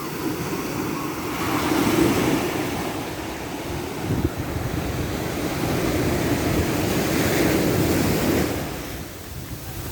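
Ocean waves breaking and washing up a shore. The rush swells about two seconds in, then builds again into a longer surge that eases off near the end.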